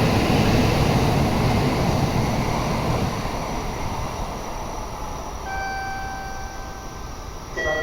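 Tokaido Shinkansen train running out of the station, its rushing noise fading steadily as it pulls away. A few steady high tones sound briefly about two thirds of the way through.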